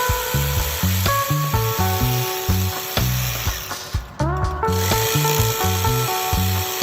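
Background electronic music with a stepping bass line, held synth notes and a steady beat. The high end drops out briefly about four seconds in, then the music comes back in with rising notes.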